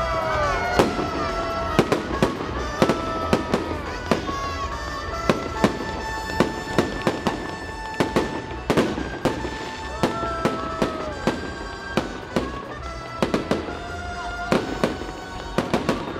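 Fireworks salute: a dense run of sharp bangs and crackles, with whistling tones that hold and then fall in pitch over them.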